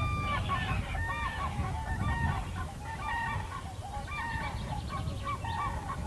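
Several large waterbirds calling together: a loose chorus of short honking calls at different pitches, several a second, that thins out and stops near the end. A steady low rumble runs underneath.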